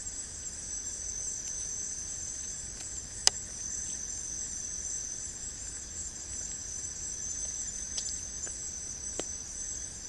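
Chorus of night insects: a steady, high-pitched pulsing trill. A single sharp click about three seconds in, and a few fainter ticks near the end.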